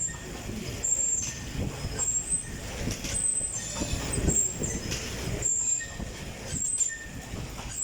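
Fan-type stationary exercise bike being pedalled: the air-resistance fan whooshes, swelling and easing in a steady rhythm, with a short high squeak about once a second.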